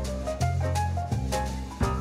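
Background music in a jazzy, swing-like style, with bass notes and drum strokes under a shifting melody.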